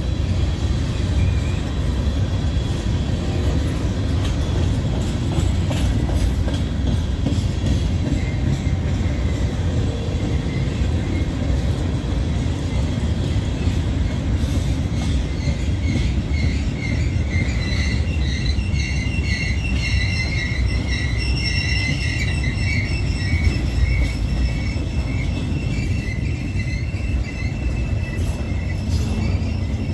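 Freight train cars rolling slowly past with a steady low rumble. About halfway through, a high-pitched pulsing brake squeal sets in and goes on for several seconds as the train slows to a stop.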